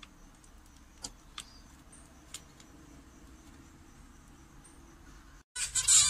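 Zebra finches: a few faint, short high calls over a low background hiss. Near the end, after a brief dropout, loud, rapid nasal zebra finch calling starts.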